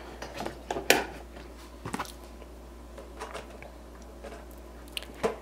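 Gold metal binder rings of a ring agenda being opened and a card-stock dashboard page handled and fitted onto them: small clicks and paper handling, with one sharp snap about a second in.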